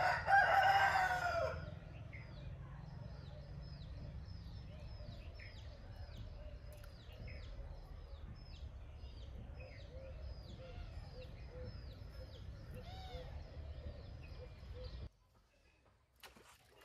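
A rooster crows once, loudly, for about a second and a half. Then a small bird calls over and over with short, high, downward-sliding notes, about two a second, over a low steady outdoor rumble. The sound cuts off suddenly near the end.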